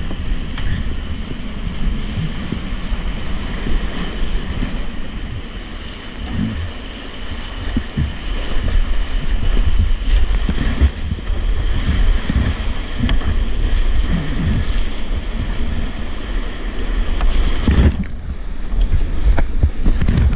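Whitewater rapids rushing around a kayak running a steep rocky drop, heard close up, with water and wind buffeting the camera's microphone as a low rumble. The rush grows rougher near the end as the boat plunges through foaming water.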